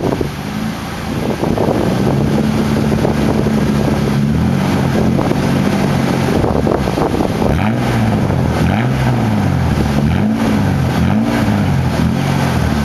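2002 Ford Ranger's 4.0 SOHC V6 running steadily at raised revs at the tailpipe while it burns off Seafoam cleaner, blowing heavy exhaust smoke. From a little past halfway it is revved up and down about four times in quick succession.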